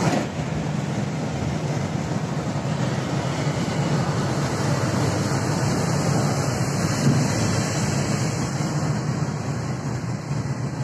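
Steady engine and road noise heard inside the cabin of an intercity bus travelling at speed, with a low hum under an even hiss.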